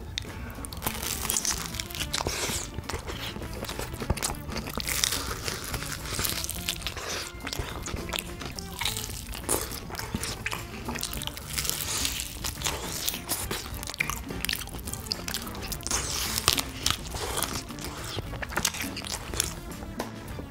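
Close-miked biting and chewing of crispy-coated, honey-glazed fried chicken: repeated crunches of the coating between slower, wet chewing.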